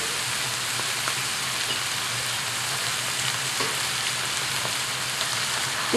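Conger eel pieces in sambal paste frying in a hot wok, sizzling steadily, with a few faint clicks.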